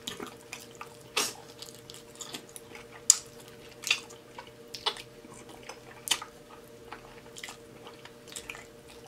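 Close-miked chewing of braised beef rib meat, with sharp wet smacks of the lips and mouth at irregular intervals, roughly one a second. A faint steady hum runs underneath.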